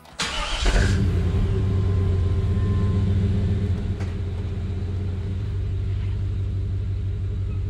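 A 1995 Chevy Tahoe's engine starting with a brief crank, catching under a second in, and settling into a steady idle that eases slightly after a few seconds.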